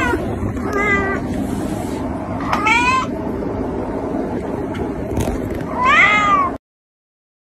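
A kitten meowing three times, a couple of seconds apart. The first is short and the last is the longest and loudest, rising and falling in pitch. The sound then cuts off abruptly.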